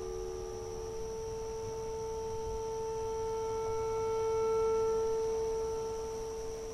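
Clarinet holding one long, soft note that swells to its loudest about two-thirds of the way through and then fades, ending just at the close; a lower note overlaps it at the start and drops away about a second in.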